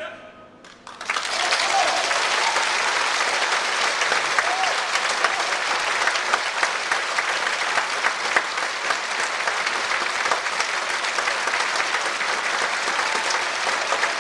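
A large concert-hall audience applauding loudly after an operatic aria with orchestra. The last of the music dies away at the very start, and the clapping begins about a second in. A few voices call out over the clapping.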